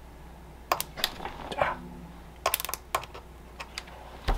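Sharp metallic clicks and crackles, about a dozen spread over four seconds, as a wire is touched repeatedly to a Power Queen 10Ah LiFePO4 battery's terminal to short it. The battery has no short-circuit protection, so the short keeps sparking instead of being cut off.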